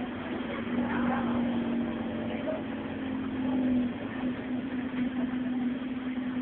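Scania OmniCity bus's 5-cylinder, 9-litre diesel engine running steadily, heard from inside the passenger saloon as a constant drone over road and cabin noise.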